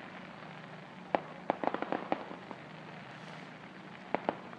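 Aerial fireworks bursting: a quick string of sharp cracks starting about a second in and lasting about a second and a half, then two more cracks near the end.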